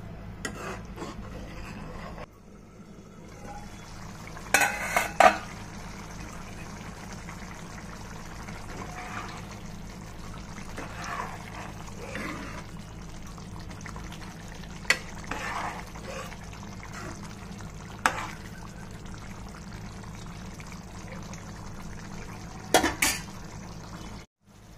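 A metal ladle stirring thick chickpea curry in a pan, with soft scraping and a few sharp knocks of the ladle against the pan, over a steady low hum.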